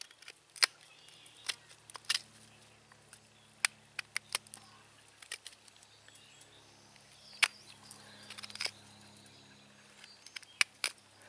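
Flexcut carving knife blade scraping and prying chips out of the hollow in a round wooden turkey-call base, in sharp, irregular clicks and scratches. A faint steady low hum runs underneath.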